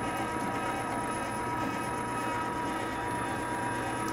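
Large electric meat grinder running steadily, forcing beef through its coarse grinding plate on a second grind. Its motor gives a constant drone with a steady high whine.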